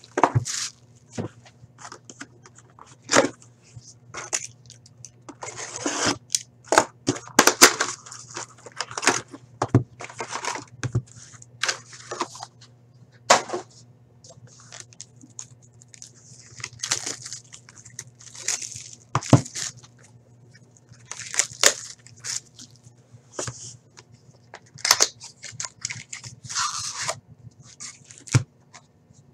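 Plastic shrink wrap crinkling and tearing as a sealed box of trading cards is unwrapped, with irregular clicks and taps of cardboard and card packs being handled. A steady low hum runs underneath.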